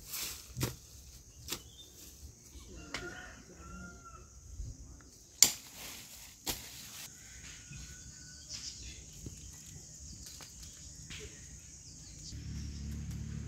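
Hand hoe chopping into soil to dig out arrowroot corms: a few separate dull strikes, the loudest about five seconds in. A bird calls faintly in the background.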